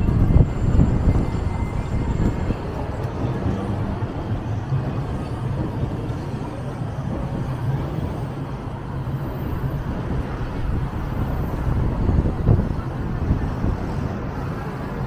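City street ambience dominated by a steady rumble of passing road traffic.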